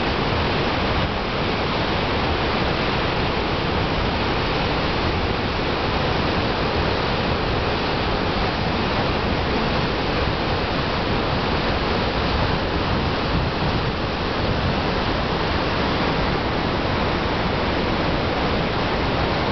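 Rogue River white water rushing through a narrow rock gorge: a steady, unbroken rush of water.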